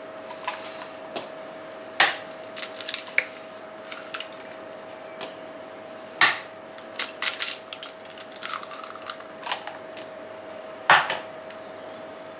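Eggs being cracked open one at a time: three sharp cracks about four to five seconds apart, each with smaller clicks of shell around it, over a faint steady hum.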